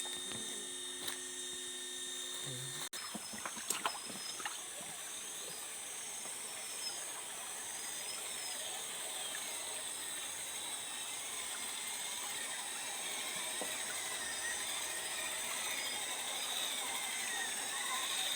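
RC rock crawler's electric motor and gear drivetrain whining as it drives, the pitch wavering up and down with the throttle and growing louder toward the end. A few sharp clicks about four seconds in.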